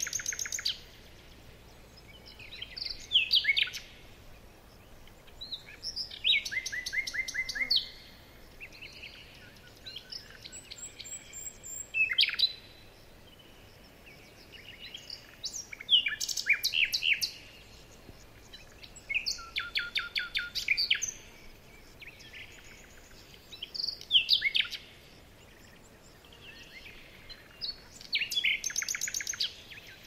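A songbird singing, short phrases of rapid high notes repeated every three to four seconds.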